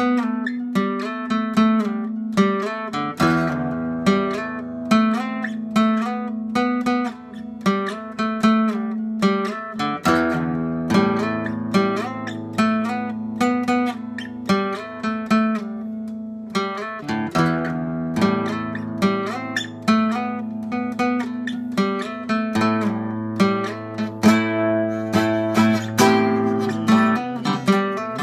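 Acoustic guitar playing a repeating picked and strummed figure in an odd meter (25/8), with one low note ringing steadily underneath while the bass notes change every several seconds.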